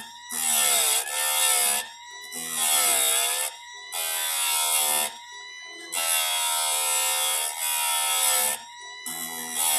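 Electric chainsaw chain sharpener grinding a chain tooth in about five strokes of one to three seconds each. Each stroke brings a harsh grinding hiss, and the motor's whine dips in pitch under load before recovering in the short gaps.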